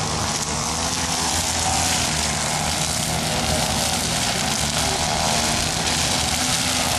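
An engine running steadily, a continuous drone that holds an even pitch throughout.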